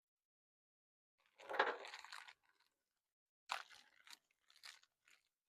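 Rustling and crunching handling noise as parts are moved about: one burst about a second and a half in, a sharper clack about three and a half seconds in that fades out, then two small clicks.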